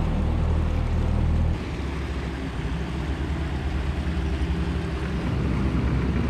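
Outboard motor of an aluminium tinny running steadily under way, with water rushing past the hull. About a second and a half in, the drone drops in loudness.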